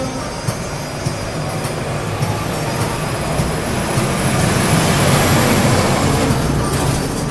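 A vehicle passing on the street: a loud rumble that swells to a peak about five seconds in, then eases off.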